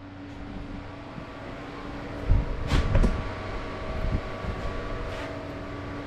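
Steady low electrical hum with a background rumble, cutting in suddenly, with a few dull thumps and knocks about two to three seconds in and one more a second later.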